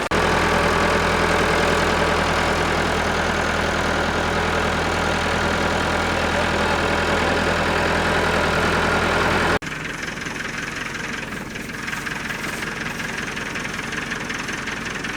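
Tractor engine running steadily at idle. About two-thirds of the way through it cuts off abruptly, and a quieter engine sound with less low end takes over.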